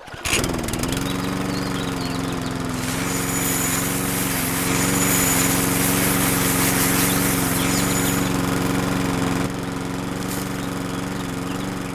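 Small electric motor of a miniature DIY machine starting up and running steadily; its pitch dips briefly right after it starts, then holds even. A louder, coarse hiss rides on top of it from about three seconds in until shortly before the end.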